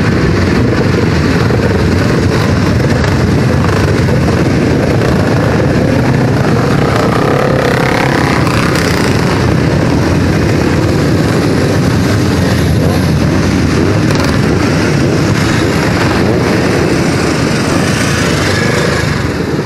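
A group of classic racing motorcycles running loudly together, engines blipped as the bikes ride off one after another; one engine revs up about eight seconds in.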